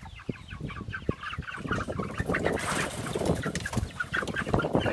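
A flock of white chickens clucking with short, rapidly repeated calls, turning louder and more agitated in the second half with scuffling and squawks as one bird is grabbed.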